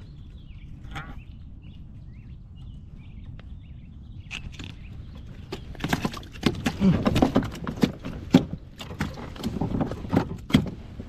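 Rapid, irregular knocks and thumps on the plastic deck of a sit-on-top fishing kayak, starting about halfway in, over a steady low rumble.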